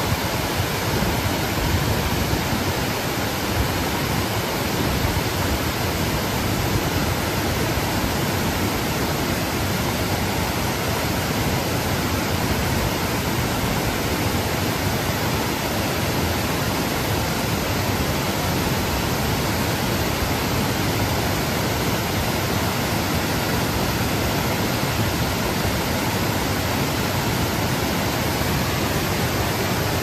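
A tiered waterfall cascading over rock ledges: a steady, even rush of falling water with no breaks or changes.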